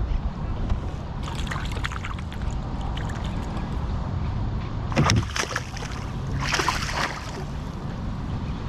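Water sloshing and splashing around a kayak, with a few knocks against it and a steady low rumble. The loudest moments are a short knock about five seconds in and a hissing splash a second or so later.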